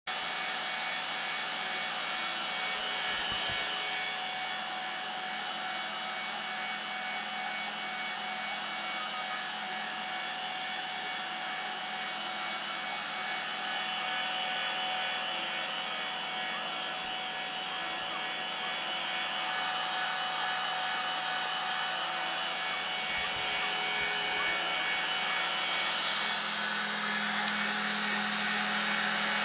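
Router spindle of a homemade CNC machine running steadily while its bit mills a finishing pass in a polystyrene foam panel. A constant whine over cutting hiss, growing a little louder over the last few seconds.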